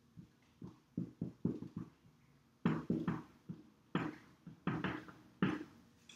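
Marker writing on a whiteboard: about fifteen short strokes of the tip in quick clusters as words are written out.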